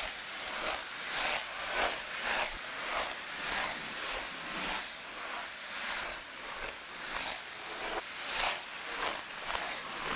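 Ice skate blades scraping and gliding across ice in a steady run of strides, each stroke a hissing scrape that swells and fades, about one to two a second.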